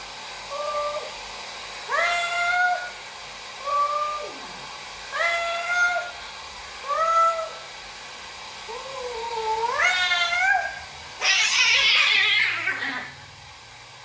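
Cats fighting: a run of about six drawn-out, wavering yowls a second or so apart, the last one longer and rising in pitch, then a loud hiss of about two seconds near the end.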